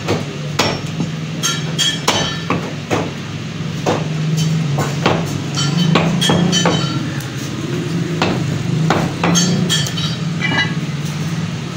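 Butcher's cleaver chopping lamb on a round wooden chopping block: sharp chopping strikes at an irregular pace, roughly one a second, over a steady low hum.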